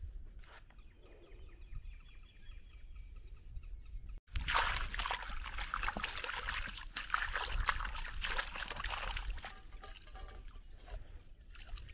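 Water sloshing and splashing in a plastic tub as leafy greens (saag) are swished and rinsed by hand in river water. It is quieter for the first four seconds, then sets in loudly and eases off about two seconds before the end.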